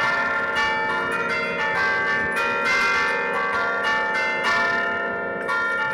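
Church bells played by hand from a wooden baton keyboard (the Bergamasque 'suono a tastiera'): the clappers strike several tuned bells in quick succession, their tones ringing over one another as a tune.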